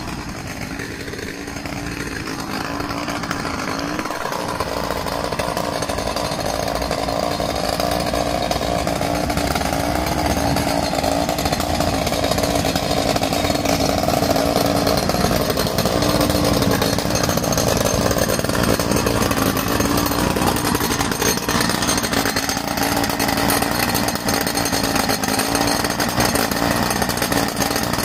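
Handheld gas-engine jackhammer running steadily as it breaks into the sidewalk for a new stop sign post, its engine buzz growing louder over the first several seconds as it comes closer.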